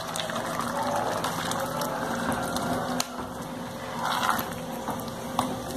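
Tomato paste scraped out of a sachet into a pot of ground-beef sauce, then a wooden spoon stirring the thick sauce in the pot.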